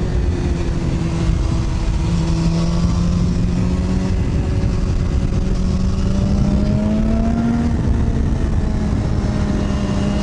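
Sport bike's inline-four engine running at steady road speed, heard from the rider's seat over heavy low wind rumble. The engine note breaks off briefly about a second and a half in, then climbs slowly through the middle and levels off near the end.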